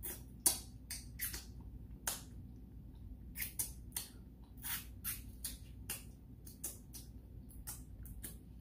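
Close-miked mouth sounds of eating with the hands: wet lip smacks, finger sucking and chewing on meat pulled off a bone. The sharp, irregular smacks come about two a second.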